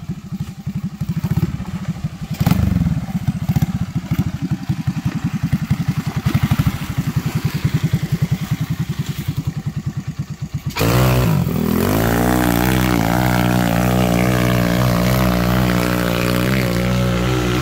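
Small off-road go-kart engine chugging at low revs with a fast, even pulse as the kart crawls over rough dirt. About eleven seconds in the sound changes abruptly to a steady, even drone.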